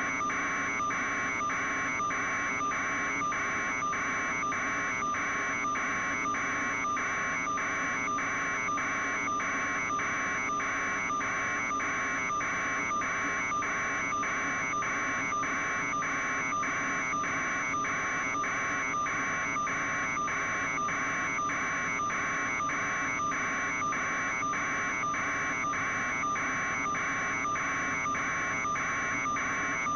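Steady mechanical drone with a thin high whine and a hissing buzz that pulses evenly about twice a second, unchanging throughout.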